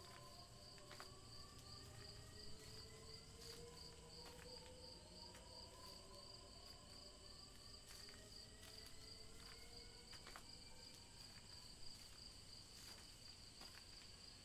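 Faint night-time sound-effect ambience: a steady, rapidly pulsing cricket trill, with several slowly rising eerie tones beneath it and a few faint clicks.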